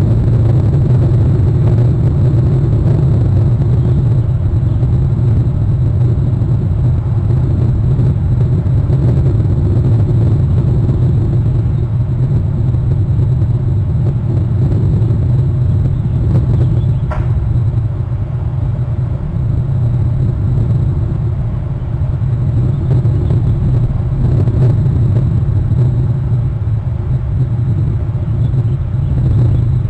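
A steady low rumble, with one brief sharp sound about seventeen seconds in.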